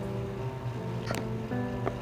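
Background music with held notes over a steady low bass. Two short clicks, about a second in and near the end, come from the pages of a large photobook being handled.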